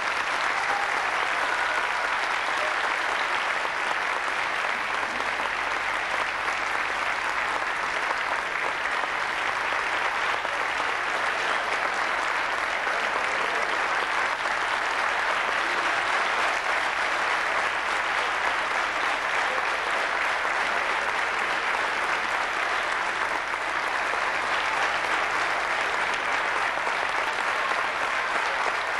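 Audience applauding steadily, a sustained wash of clapping with no let-up.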